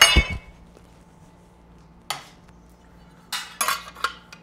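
Metal tools and parts clanking on a steel fixture table: a sharp, loud clank with a brief ring at the start, a single knock about two seconds in, then a few quick clinks near the end.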